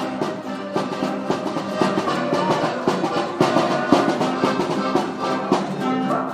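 Live band playing instrumental music at a jam session, pitched instruments over a beat of drum hits.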